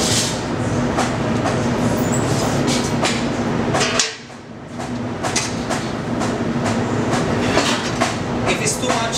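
Irregular clattering and scraping of a tool worked against the ash-covered floor of a brick wood-fired pizza oven, over a steady low hum; the sound dips briefly about four seconds in.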